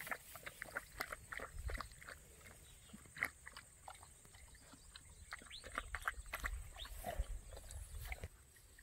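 Puppy sniffing and snuffling through long grass: a quick, irregular run of short sniffs that eases off near the end.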